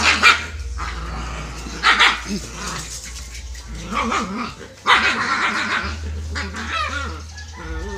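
Dogs play-fighting and barking: several sharp barks, about five in all, spread across the few seconds.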